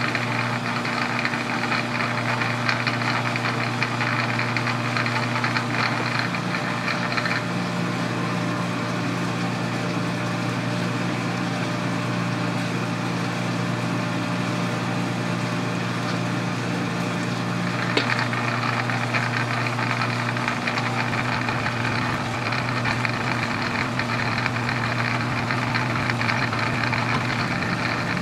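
Metal lathe running steadily with a steady hum while a single-point tool cuts a square thread under power feed. The brighter cutting hiss eases off about seven seconds in, and a single sharp click comes a little past halfway.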